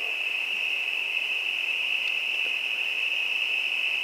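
Night insects chirring in a steady, high-pitched continuous trill.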